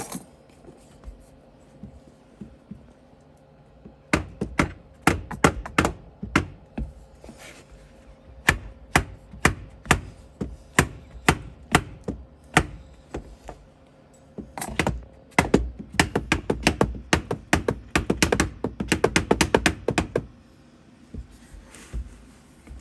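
Mallet blows driving a steel pivot pin through an accelerator pedal hinge. Single sharp knocks start about four seconds in, roughly one to two a second, then a quick run of taps several a second that stops a couple of seconds before the end.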